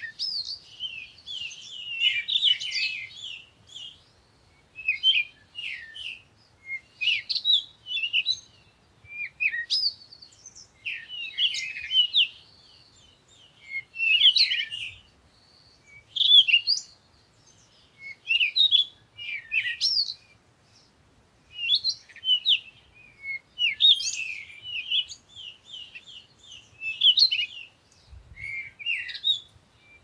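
Songbird song: short, high, varied phrases, one every second or two, with brief pauses between them.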